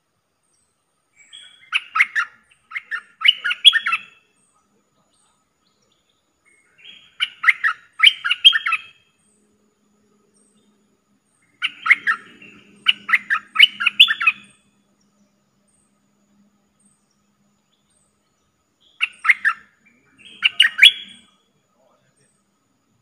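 A caged merbah lekir bulbul, kept as a decoy to lure wild bulbuls, singing short bouts of quick, bubbly chattering notes. There are four bouts, several seconds apart.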